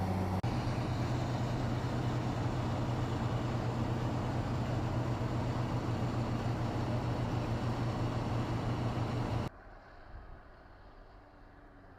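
A motor-driven machine running steadily with a deep hum. Its pitch shifts slightly about half a second in, and it cuts off abruptly near the end.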